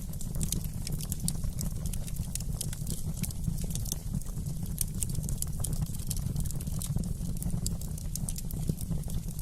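Wood fire crackling in a fireplace: many sharp, irregular pops and snaps over a steady low rumble.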